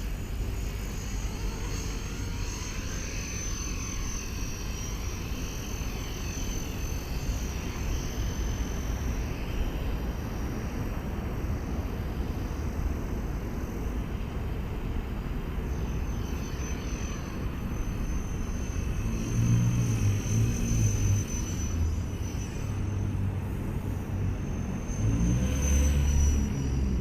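Small electric RC helicopter (Blade 230S) running: a high, steady motor-and-rotor whine that wavers slightly in pitch as the throttle changes. A low rumble swells twice in the second half.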